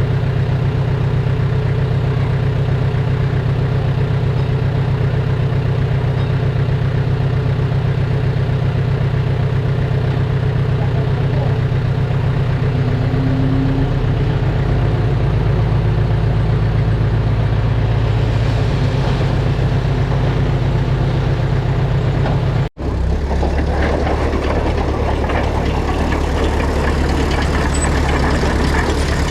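Heavy diesel engine of earthmoving machinery running steadily. About three-quarters of the way through the sound breaks off for an instant, then goes on as a deeper engine note with more rattle and clatter over it.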